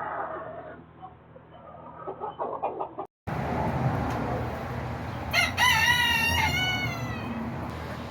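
Backyard chickens clucking softly, then a rooster crowing once about halfway through: one long call, wavering in pitch, lasting about a second.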